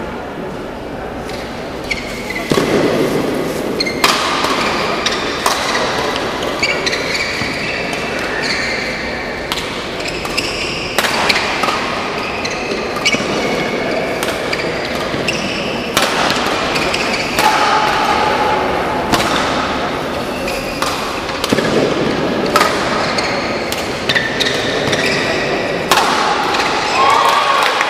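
Badminton rally in a large hall: sharp cracks of rackets striking the shuttlecock every second or two, with shoes squeaking on the court between strokes over a murmuring crowd.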